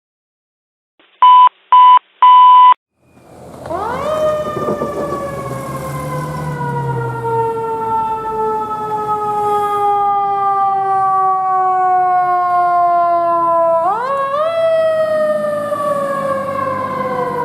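Three loud beeps at one pitch, the last one longest. Then a fire engine's siren winds up and falls slowly in pitch for about ten seconds, with a low engine and traffic rumble under it. About fourteen seconds in it winds up again and starts another slow fall.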